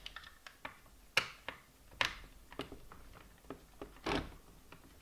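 Light clicks and taps of a screwdriver against the plastic chassis and screws of a Tamiya Midnight Pumpkin RC truck as it is taken apart: a dozen or so scattered clicks, with a slightly louder knock about four seconds in.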